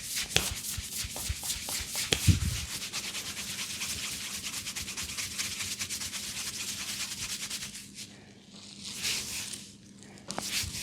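Head massage: hands rubbing briskly over hair and scalp at about five strokes a second, with a low thump about two seconds in. Near the end the rubbing slows to two softer, slower strokes.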